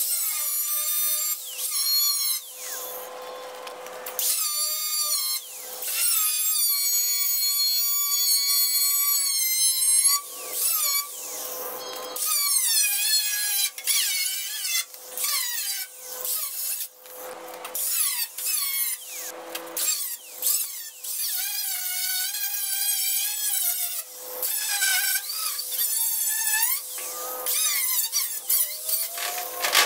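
Electric angle grinder with a cut-off wheel slicing through the rusted steel side panel of a 1963 IH Metro-Mite step van. It gives a high whine in repeated bursts, its pitch sagging and climbing again as the wheel bites into the metal and frees up.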